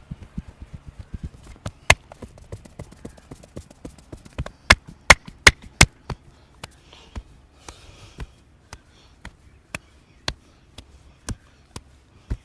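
Hand strikes of a head massage: a quick run of light chopping taps, then about two seconds in a loud sharp slap, and in the middle four very loud sharp slaps in quick succession. After that, single sharp strikes land evenly, about two a second.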